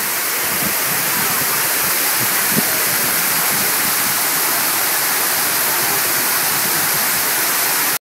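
Large man-made waterfall: a steady, even rush of falling water.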